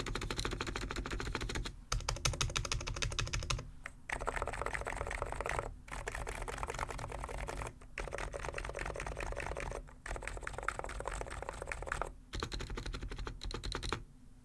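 Fast typing on a Hansung GK893B keyboard with completely stock 50 g electro-capacitive (Topre-style) switches: a dense run of keystrokes in stretches of about two seconds with short pauses between, stopping just before the end.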